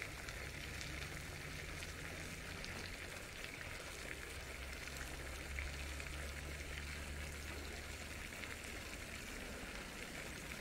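Steady faint hiss with a low hum underneath.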